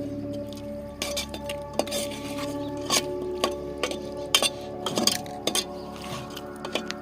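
A metal spoon or spatula stirring in a cooking pan, with a string of irregular clinks and knocks against the metal.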